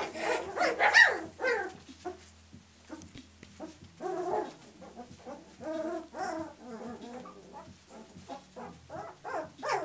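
A litter of puppies whining and yipping, several at once, in short high cries that bend in pitch. The cries are loudest and thickest in the first second and a half, then go on more sparsely.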